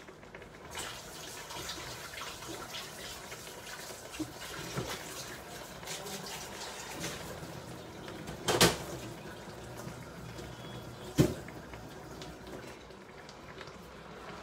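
Spaghetti simmering in meat and vegetable stock in a steel sauté pan: a steady faint bubbling with many small crackles. Two sharp knocks stand out, about eight and a half and eleven seconds in.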